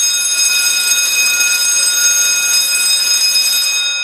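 Fire alarm sounder of a PLC-based fire alarm system going off in a loud, steady, high-pitched ring, set off by a heat detector being heated with a flame. It stops right at the end.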